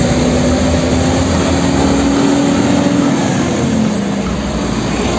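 Heavy truck driving past on a road: steady engine and traffic noise. A drone in it drops a little in pitch about four seconds in.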